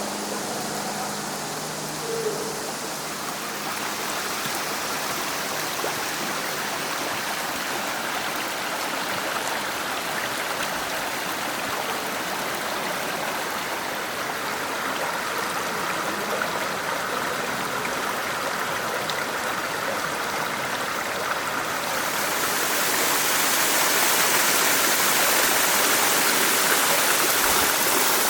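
Creek water rushing steadily, growing louder about three-quarters of the way through.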